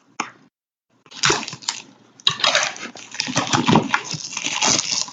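Plastic shrink-wrap crinkling and tearing, with cardboard rustling, as a sealed trading-card box is unwrapped and opened. It starts about a second in and runs on without a break.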